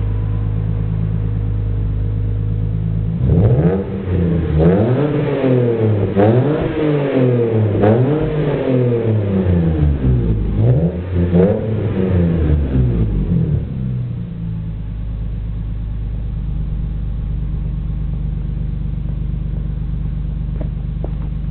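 2002 Lexus IS300's 3.0-litre inline-six, fitted with an Injen intake, Xerd racepipe and Apexi N1 catback exhaust, idling steadily. It is then free-revved in a quick run of repeated blips, each rising and falling in pitch, for about eleven seconds, and settles back to idle.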